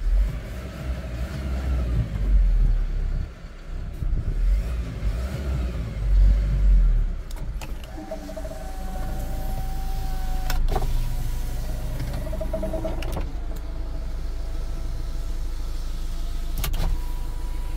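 Kia Bongo 3 truck's engine running at idle, heard from inside the cab, with heavier uneven low rumbling over the first seven seconds before it settles to a steady idle. Short whining tones come in twice, about eight and twelve seconds in, with a few sharp clicks.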